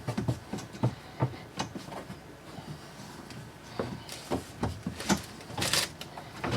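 Drawer slide rails being wiggled loose and pulled from the peg holes in a pantry cabinet wall: a string of irregular clicks and knocks, with a short scraping rasp near the end.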